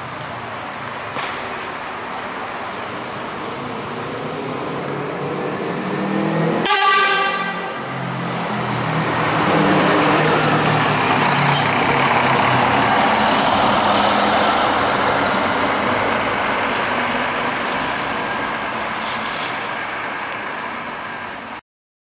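Scania K420IB coach's diesel engine running as the bus pulls away and drives past, with the horn sounding once, briefly, about seven seconds in. The engine grows louder as the bus passes, then fades slowly, and the sound cuts off just before the end.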